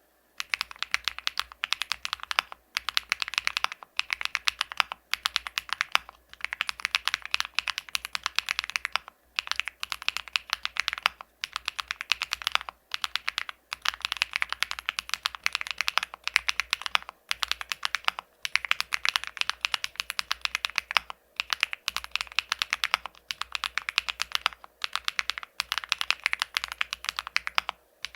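Typing on an Epomaker Tide49 40% mechanical keyboard with Epomaker Zebra linear switches: fast, continuous keystroke clacks in runs of a few seconds with brief pauses between them.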